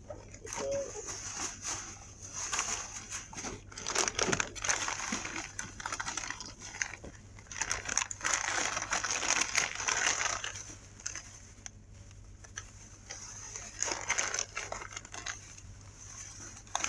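Plastic and paper packaging rustling and crinkling as it is gathered up and handled, in irregular bursts with sharp crackles.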